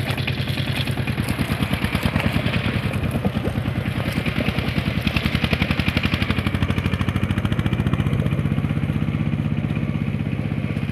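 Single-cylinder diesel engine of a two-wheeled power tiller running steadily under load as it churns through wet paddy mud, a rapid even chugging.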